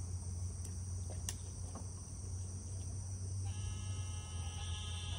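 Insects chirping steadily in a pond-side summer chorus over a low steady rumble, with a couple of sharp faint clicks about a second in. Near the end, a faint steady hum of several pitches joins.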